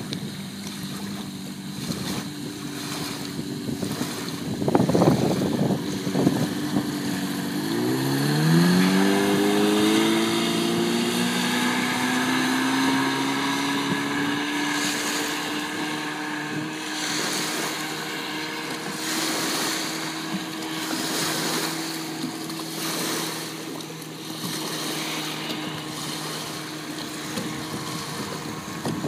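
Mercury 650 two-stroke outboard motor running on a boat under way. About eight seconds in its pitch rises sharply as the throttle opens, then it holds a steady high drone that slowly fades as the boat moves away. Wind gusts buffet the microphone, loudest about five seconds in.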